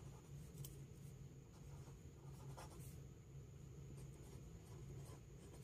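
Faint scratching of a pen writing on ruled notebook paper, in short irregular strokes over a low steady room hum.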